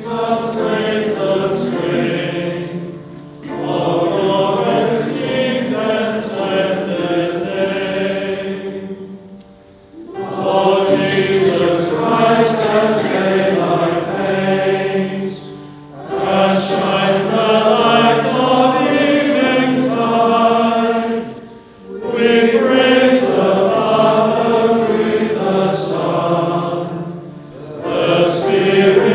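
A choir singing a sacred chant in long, sustained phrases, each followed by a brief pause.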